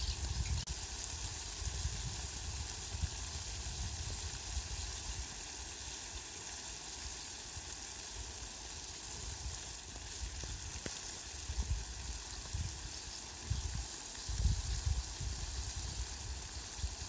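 Steady rainfall hiss, with low rumbles rising and falling now and then, strongest in the last third.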